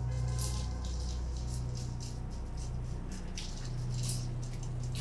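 Wheeled stretcher trolley rattling and clicking irregularly as it is pushed over paving stones, over a steady low hum.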